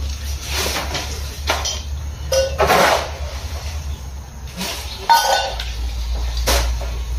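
A shovel scraping across the barn floor as it scoops chopped green fodder, then tipping the fodder into a steel wheelbarrow, in several rough scrapes and clatters. A steady low hum runs underneath.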